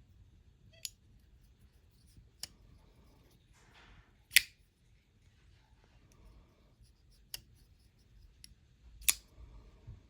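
Folding pocketknife being handled, its blade snapping open and shut in five sharp clicks. The loudest click comes about four seconds in, just after a short scraping rasp.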